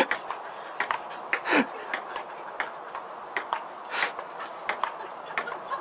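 Table-tennis ball clicking in a quick, irregular string of bounces and paddle hits. A short falling whine comes about a second and a half in.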